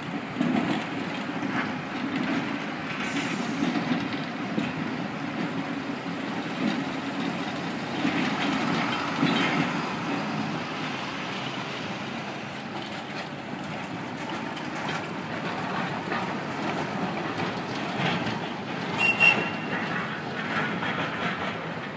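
1927 wooden-bodied electric freight trams running along street tramway tracks with a steady rumble, amid city street noise, and a brief high squeal near the end.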